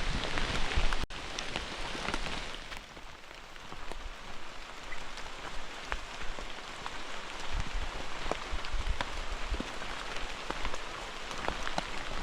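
Rain falling steadily, with many separate drops tapping close by.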